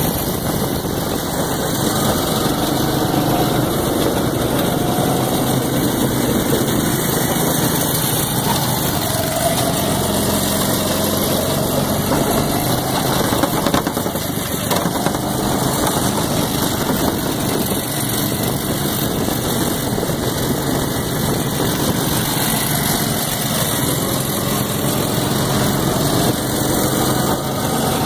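Go-kart engines running steadily on the track, heard from on board a moving kart, with a dense rushing noise over them and the engine pitch wavering slightly.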